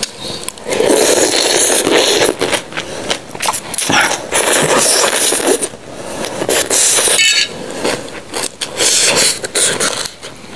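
Rice vermicelli noodles in spicy soup being slurped in several long, noisy draws, with chewing and short clicks between them.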